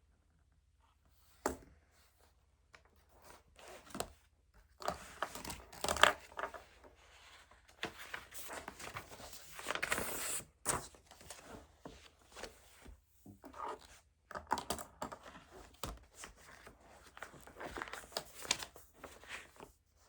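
Paper being handled at close range: irregular bursts of rustling, crinkling and tearing with sharp clicks, starting about a second and a half in.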